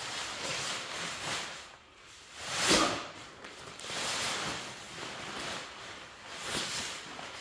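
Rustling and rubbing of the deflated inflatable paint booth's fabric being handled and stuffed into its storage bag, in uneven swells, the loudest a little under three seconds in.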